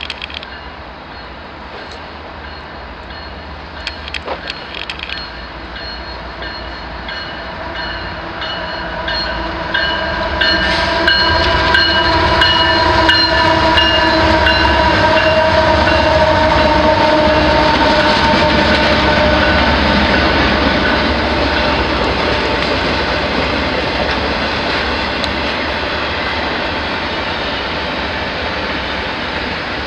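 Canadian Pacific diesel freight train approaching and passing at speed. The locomotives grow louder to a steady pitched whine, loudest a third to two-thirds of the way in, then give way to the rumble and rattle of double-stack container cars rolling by.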